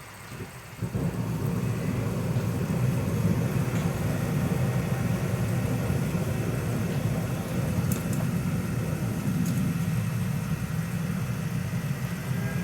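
Home-built pumped diesel burner, a mini gear pump feeding pressurised diesel through an oil-boiler pressure nozzle with a small electric blower, catching about a second in. It then fires steadily with a low, even rushing noise.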